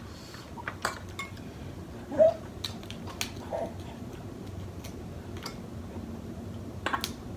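Scattered clicks and clinks of utensils, dishes and crab shells being handled while eating, with a short louder sound about two seconds in.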